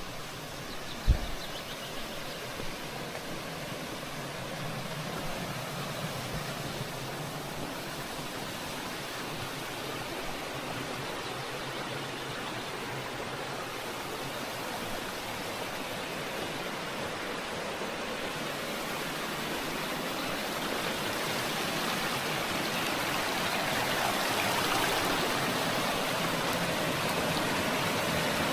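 Rushing water of a mountain stream, a steady hiss that grows gradually louder. There is a single thump about a second in.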